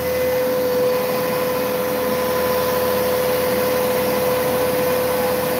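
Langmuir Systems MR-1 CNC mill cutting mild steel with a six-flute carbide end mill at about 5,000 RPM. It makes a loud, steady, high-pitched cutting whine that holds one pitch over a steady hiss.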